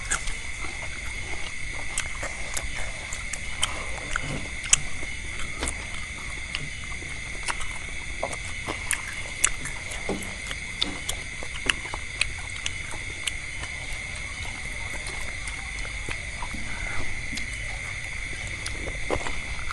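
People eating fried meatballs and vegetables: scattered short clicks and crunches of chewing and utensils, over a steady high-pitched hum.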